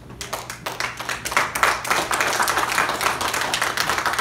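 Congregation applauding: many people clapping, breaking out suddenly and swelling within the first second into steady applause.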